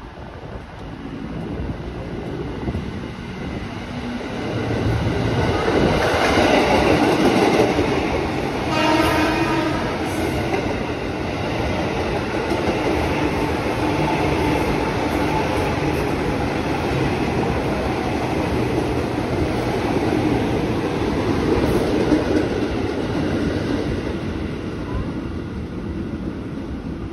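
KAI Commuter 205-series electric multiple-unit train running along the platform track, its rolling and wheel noise building up over the first several seconds and then holding steady. A short horn blast sounds about nine seconds in.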